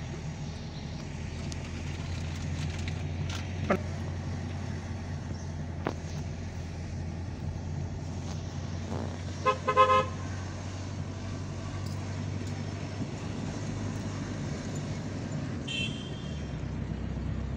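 Steady low engine and road drone of a car heard from inside the cabin, with a car horn sounding a few quick toots about ten seconds in; a short knock or two earlier on.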